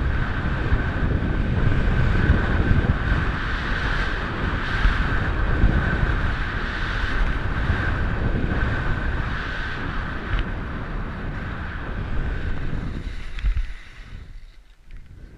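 Wind rushing hard over a body-worn camera's microphone while riding fast down a snow slope, with a steady hiss of the ride over the snow. Near the end there is a knock and the rushing drops off sharply as the rider slows.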